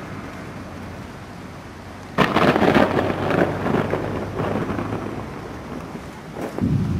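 Thunder: a sudden sharp crack about two seconds in that rumbles on and dies away over a couple of seconds, then a second loud clap near the end, over the steady hiss of heavy rain.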